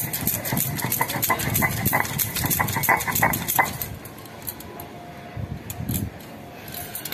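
Wet spice paste being worked on a sil-nora, a flat grinding stone with a stone roller: a quick run of clicks and scrapes of stone and fingers that thins out about four seconds in.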